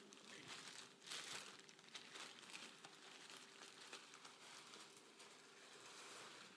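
Near silence: room tone with faint rustling, briefly louder about a second in, over a faint steady hum.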